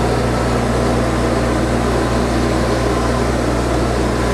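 Steady mechanical hum of shop machinery running, a constant low drone with a faint whine over it and no change in level.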